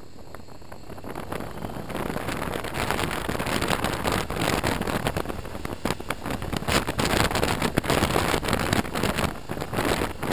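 Wind rushing and buffeting over a helmet-mounted camera's microphone on a moving BMW R1200RT motorcycle, with the bike's boxer-twin engine running underneath. The noise builds over the first couple of seconds as the bike picks up speed, then stays loud with gusty swells.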